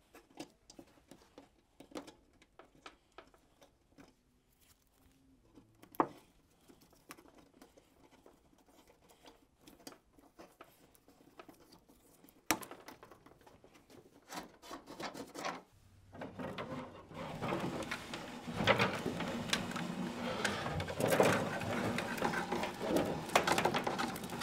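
Hands handling thermostat wire and a stiff fish wire at a hole in drywall, joining them and pulling them through: faint scattered rustles and small clicks with two sharper clicks, then a denser, louder crackling rustle for the last eight seconds or so.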